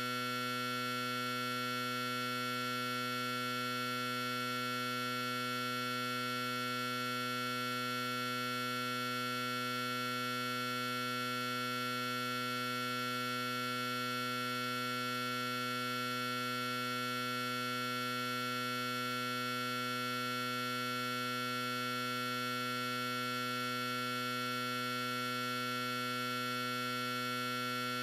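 A steady, unchanging hum made of several held tones at once.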